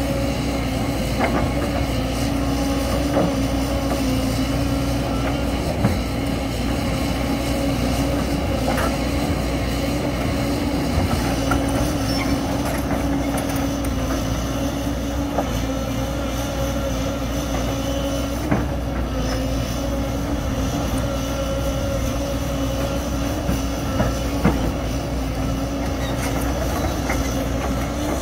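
Crawler excavators' diesel engines running steadily, with a few scattered clanks and knocks from the buckets and tracks working in loose rock.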